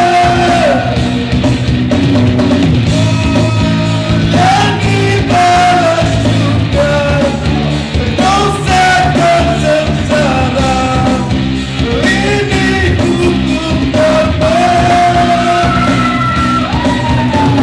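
Male singer singing a rock song, backed by a full band with guitar, bass and drums, with long held notes.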